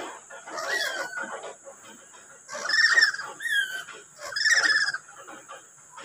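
Black-capped lory calling: a gliding squawk about a second in, then two loud, harsh screeches, with a short falling whistle between them.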